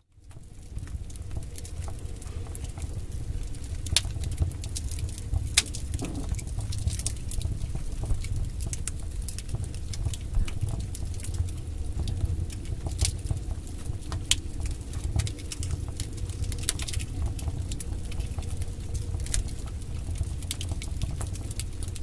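Wood fire burning in a fireplace: a steady low rumble of flames with irregular sharp crackles and pops from the burning logs. The sound fades in over the first second.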